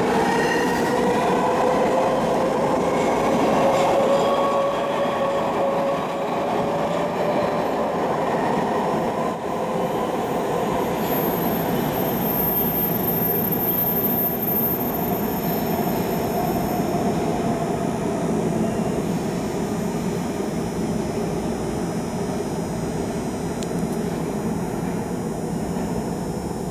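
MARTA rapid-transit subway train pulling out of an underground station: the traction motor whine rises in pitch as it speeds up, over a steady rail rumble. A thin high wheel squeal comes in midway, and the rumble slowly fades as the train runs off into the tunnel.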